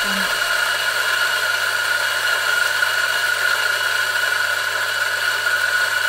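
A professional coffee machine running with a steady whirring hiss and a constant high whine, holding level throughout.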